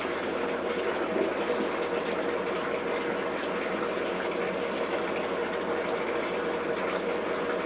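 Steady, unbroken rush of water, with a faint steady hum underneath.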